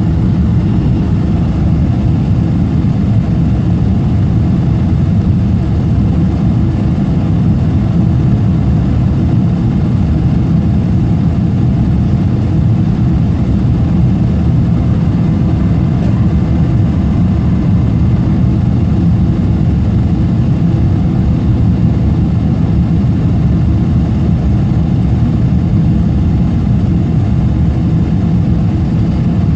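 Steady, unchanging low rumble of a Boeing 777 jet airliner's engines.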